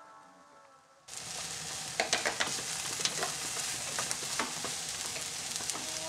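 Fried rice sizzling in a nonstick frying pan while it is stir-fried with a wooden spatula, with irregular clicks and scrapes of the spatula against the pan. The sizzle cuts in suddenly about a second in.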